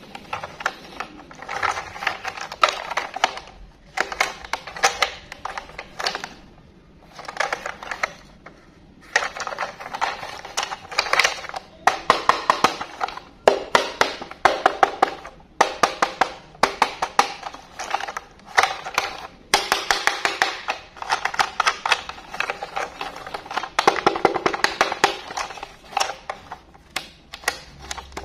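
Hard plastic toy train being handled: rapid bursts of clicking and clattering, each a second or two long, with short pauses between.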